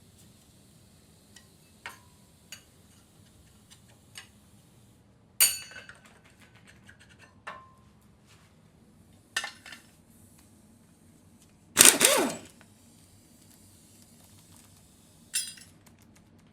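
Hand tools and metal engine parts clinking and clanking as the diesel engine is taken apart. There are a few light clinks, then sharper ringing clanks. The loudest is a clattering burst about twelve seconds in.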